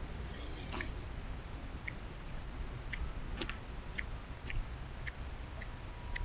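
Quiet outdoor walking ambience: light, short clicking steps, about two a second in the second half, over a steady low rumble on the microphone.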